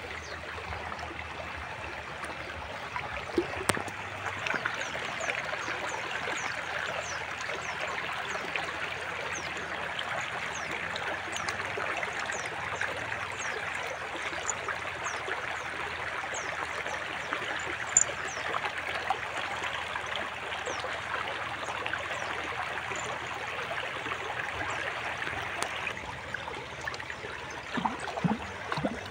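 Shallow rocky stream flowing and babbling steadily around a puppy's legs, with a few brief sharper sounds from the water.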